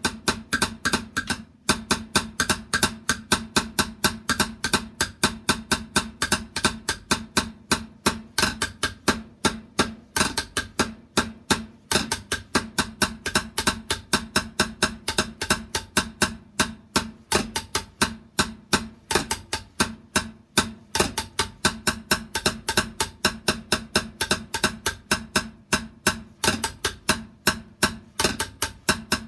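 A drum played in a steady, fast stream of strokes, several a second, each with a short ring.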